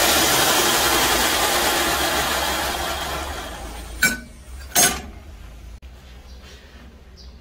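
Bench-grinder-driven sanding belt running with a steady rushing noise, then winding down and fading over the first four seconds after it is switched off. Two sharp clinks follow, about four and five seconds in.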